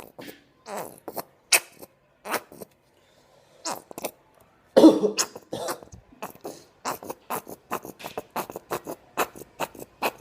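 Homemade slime being squeezed and kneaded by hand, giving a run of short wet squelches and pops. They come more often in the second half, and the loudest is about five seconds in.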